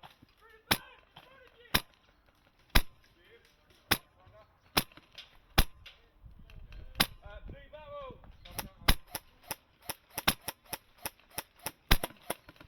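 Airsoft gunfire: sharp single shots about once a second, then a quicker run of shots about three or four a second from around eight seconds in.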